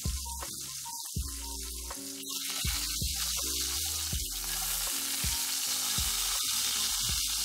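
Skin-on chicken thigh sizzling as it sears in oil in a clay pot over medium heat; the sizzle grows louder about two seconds in. Background music with a steady beat runs underneath.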